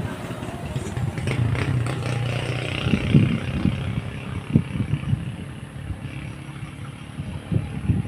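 A motor vehicle's engine running as outdoor background noise, with a steady low hum in the first half and a few dull thumps.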